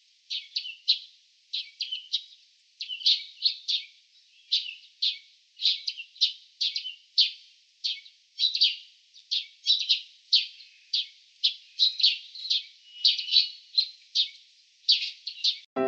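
A small bird chirping over and over in short, high notes, a few a second.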